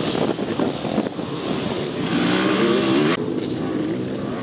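Enduro dirt bike engine revving, its pitch rising, and cutting off abruptly about three seconds in.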